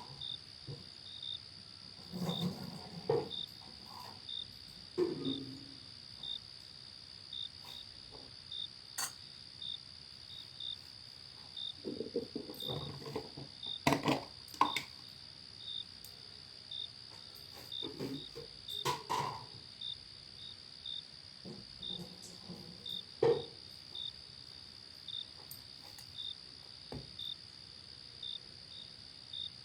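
Crickets chirping: a steady high trill with short chirps about once or twice a second. Scattered knocks and short rubbing or scraping sounds from objects being handled come and go over it, the loudest near the middle and about two-thirds of the way through.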